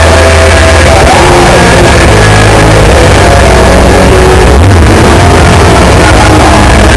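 Hardcore band playing live: loud rock music with guitar, recorded so loud on the camera's microphone that it is pinned at full level and distorted.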